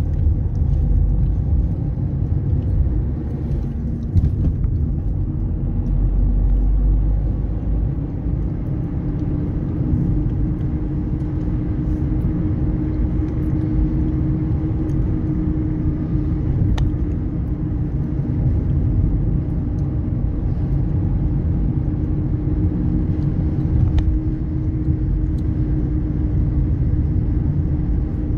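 Car being driven along the road, heard from inside the cabin: steady engine and tyre rumble, with a low steady hum that comes in more strongly about a third of the way through.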